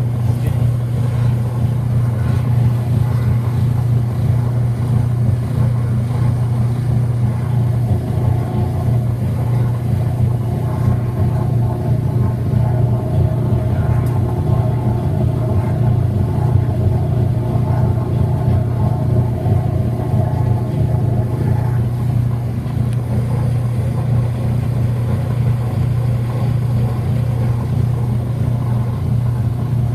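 Whirlpool WTW5300SQ0 top-load washing machine running, a steady low motor hum that holds even throughout.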